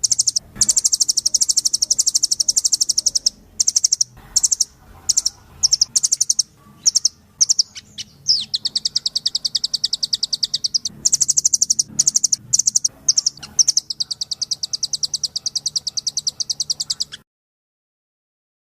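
Songbird masteran recording: rapid high-pitched trills and short chattering bursts, some runs several seconds long, then an abrupt cut-off near the end.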